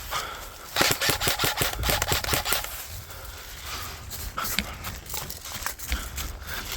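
Airsoft gun firing a quick string of shots about a second in, then a few single sharp clicks, over a steady low rumble.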